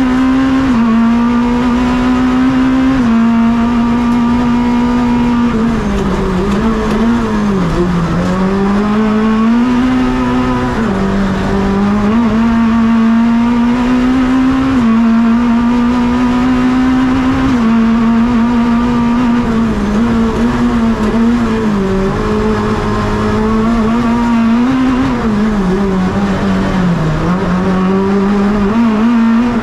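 Renault Clio hillclimb car's engine at racing speed, heard from inside the bare, roll-caged cabin. The revs climb and drop sharply with each gear change, and twice they sag well down and climb back.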